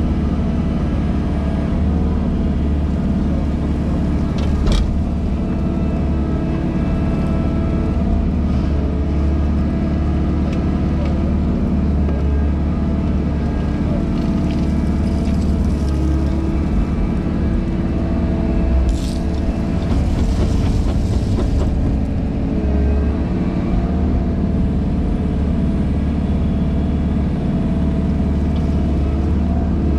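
Diesel engine of a JCB wheeled excavator running steadily under load, heard from inside the cab while the hydraulic dig arm works the bucket in the excavation. A short hiss comes in about two-thirds of the way through.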